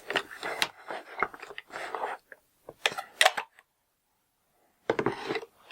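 Smartphones being handled and set into a pot of hot water: irregular clinks, scrapes and clatter against the pot, with a louder burst about three seconds in and a short pause before more clatter near the end.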